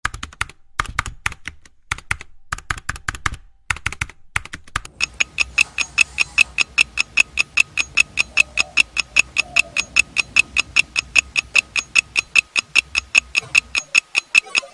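Computer keyboard typing in short bursts, then a fast, even ticking of about five ticks a second with a ringing edge, like a clock sound effect.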